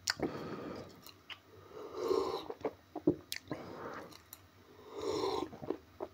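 A man sipping and slurping tea from a mug, in three noisy drawn-in sips about three seconds apart, with gulps and small mouth clicks between them.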